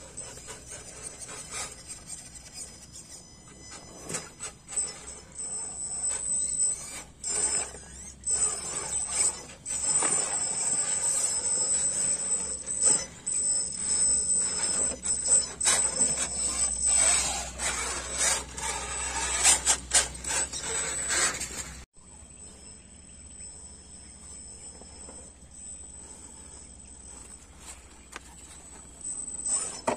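Radio-controlled scale crawler trucks working over rock and dirt: a high steady whine with the tyres scraping and knocking on stone, busiest in the middle, then dropping suddenly to a quieter whine about two-thirds of the way through.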